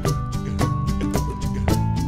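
Background music with a steady beat and a melody of held notes stepping down in pitch.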